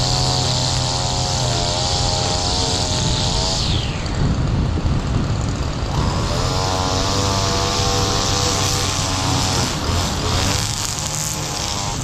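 Stihl petrol line trimmer running at high revs, cutting grass. About four seconds in the throttle eases and the high whine falls away; it revs back up about six seconds in and dips briefly again near ten seconds.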